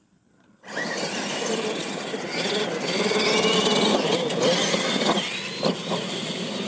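Two radio-controlled monster trucks launching off the start line about two-thirds of a second in and racing, their electric motors whining and tyres churning dirt, with a couple of sharp knocks near the end.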